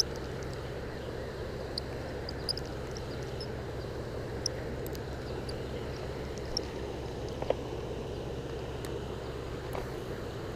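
A steady low motor hum with a few faint clicks scattered through it.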